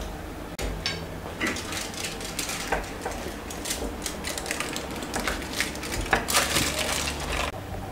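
Aluminium foil crinkling as it is handled inside a chocolate bowl shell, with a knife scraping and cracking the hardened chocolate rim. Irregular crackles run throughout and become a dense run near the end.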